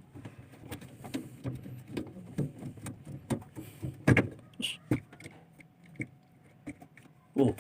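Irregular clicks, knocks and scraping of plastic parts being handled as the drain valve housing of a twin-tub washing machine is opened, with a louder knock about four seconds in and another near the end.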